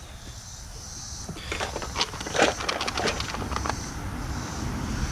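Small objects being handled and rummaged through: a run of light clicks and rattles through the middle, over a steady low rumble.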